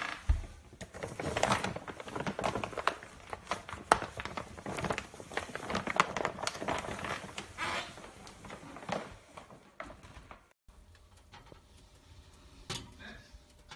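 Plastic pet food bag crinkling and rustling in quick clicks as a cat moves about inside it, with a few short voice-like sounds mixed in. After about ten seconds it cuts to a much quieter stretch with a faint steady hum and a single click near the end.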